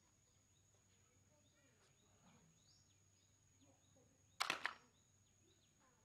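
Bamboo basket trap being sprung: a short clatter about four and a half seconds in as the basket drops shut onto the wooden board. Faint bird chirps and a steady high thin tone sit behind it.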